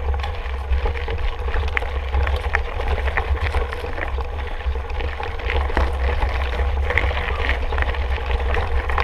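Wind buffeting the microphone during a mountain-bike ride, over a steady noise of riding on a rough trail with many small scattered clicks and rattles.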